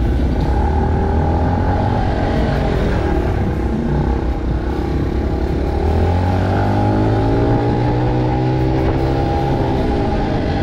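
Small motorcycle engine running while riding, its pitch dipping about three seconds in, climbing again, holding, then falling near the end as the throttle is eased and opened.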